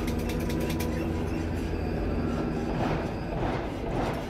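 A steady, low mechanical hum, with rapid faint clicks in the first second and indistinct voices in the background near the end. No gunshot.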